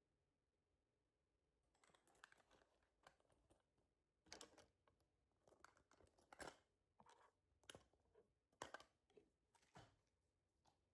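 Faint, scattered clicks, taps and rustles, a dozen or so sharp little sounds, starting about two seconds in.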